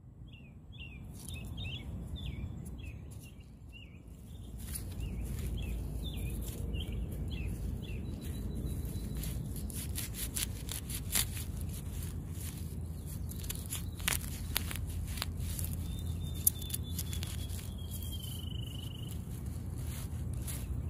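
Birds chirping in quick runs of short notes during the first seven seconds, then one long, slowly falling whistle near the end. Under them runs a steady low rumble, with scattered light clicks and ticks from about five seconds in.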